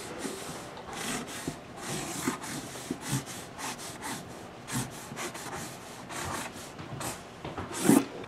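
Felt-tip marker scraping and rubbing across a cardboard box in a run of short, irregular strokes as letters are written. A single louder knock comes near the end.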